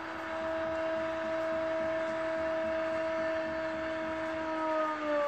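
A commentator's long drawn-out "gol" cry, one steady held note that starts to fall near the end, over a stadium crowd cheering.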